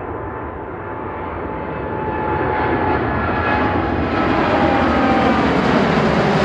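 Boeing 787-8 airliner's Rolls-Royce Trent 1000 turbofans at take-off thrust as it climbs out overhead: a loud jet noise that keeps growing, with a fan whine that slowly falls in pitch as the plane passes.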